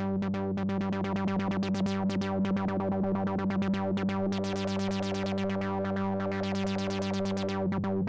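Korg ARP ODYSSEi software synthesizer playing a fast repeating pulse of notes over a steady low tone. Its brightness rises and falls as a MIDI knob sweeps the filter modulation level.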